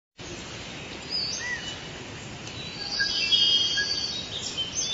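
Tropical forest ambience: a steady background hiss with scattered bird chirps and whistles, growing busier about three seconds in.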